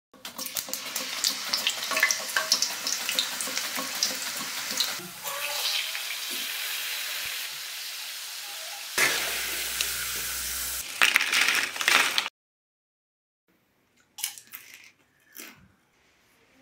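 Cooking oil poured into a pan, then raw banana slices sizzling and crackling as they deep-fry, with a metal strainer stirring and scraping in the pan. The sizzling cuts off suddenly about twelve seconds in, and a few faint short sounds follow.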